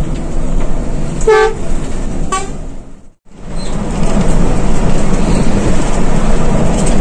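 Steady engine and road noise inside a moving coach bus, with two short horn toots about a second and a half and two and a half seconds in. The sound cuts out briefly just after three seconds, then the driving noise comes back louder and steady.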